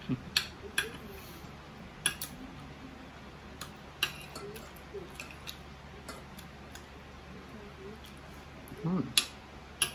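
Metal spoon and fork clinking and scraping on a ceramic plate while eating, a scattering of sharp clinks every second or so, the loudest one near the end.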